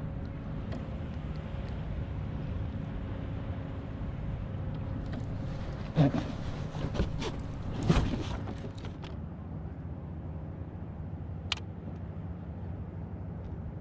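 Steady low hum of a boat engine running, with a few sharp knocks about six and eight seconds in and a short click near the end.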